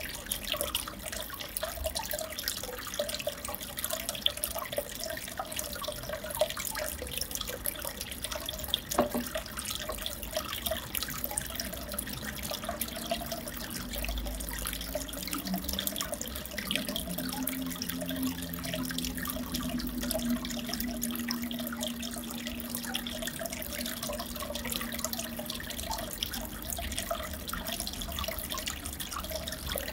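Aquarium water trickling and splashing steadily, full of small crackles, with a faint low hum in the middle.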